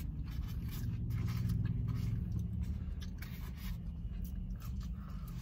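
Close-up eating sounds: chewing and small scrapes and crackles from fingers picking at cheese fries in a foam takeout container, over a steady low hum.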